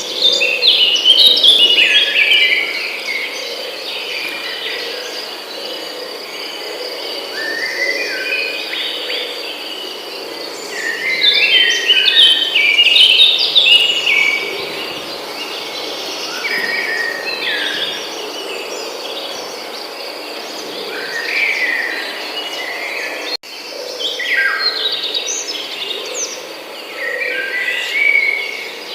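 Forest songbirds singing in bursts of quick chirping phrases, jumping and falling notes, every few seconds, over a steady high insect drone. The sound cuts out for an instant about two-thirds of the way through.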